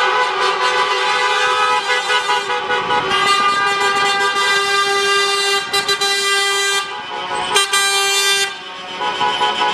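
Several vehicle horns, truck air horns among them, honking together in long overlapping blasts, with brief dips about seven and eight and a half seconds in.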